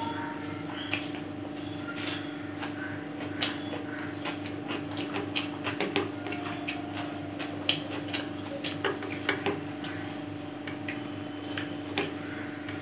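Fingers mixing and gathering biryani rice on a plate, giving many small scattered clicks and soft squelchy noises, with mouth sounds of chewing, over a steady low hum.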